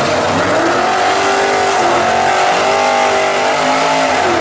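Muscle car's engine revving at a drag strip start line: the pitch climbs over the first couple of seconds, holds high, then drops back near the end.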